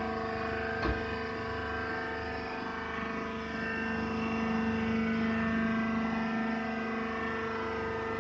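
Wheat husk baler machine running with a steady mechanical hum, with one sharp knock about a second in.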